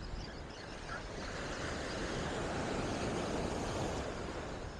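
Surf washing up the beach with wind on the microphone; the wash swells about a second and a half in and eases off near the end.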